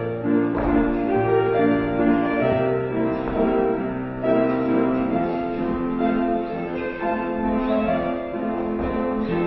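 Classical piano music in the style of a ballet class accompaniment, with a melody over held chords and a low bass note, the notes changing about once a second.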